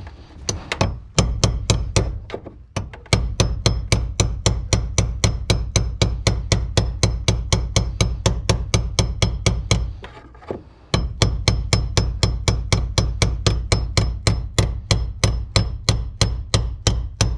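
Rapid hammer blows, about four a second, on a tool set against the teeth of a fuel pump lock ring, driving the stuck ring counterclockwise to loosen it. The blows stop briefly about 3 s in and again for about a second near the 10 s mark, then carry on.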